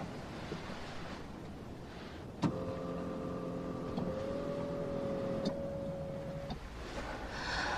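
A car's electric power window motor starts with a click and whines steadily for about four seconds, rising slightly in pitch partway through, then stops.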